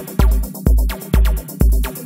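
Background electronic music with a steady, heavy kick-drum beat about twice a second and a deep bass under each beat.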